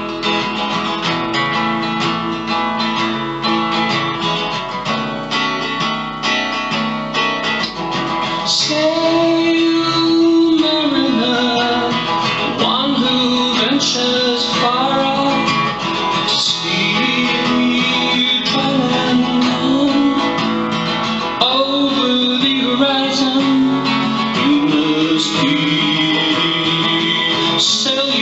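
Acoustic guitar strummed in a steady folk rhythm. About eight seconds in, a melody line joins over the strumming and carries on to the end.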